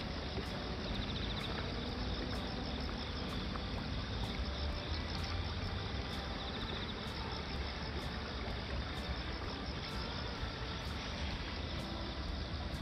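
Shallow river rushing steadily over stones, with faint insect trilling.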